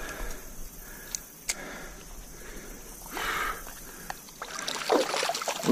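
Water splashing and sloshing in a trout stream as a hooked trout is played toward the net, in irregular surges that grow stronger near the end. Two sharp clicks come a little over a second in.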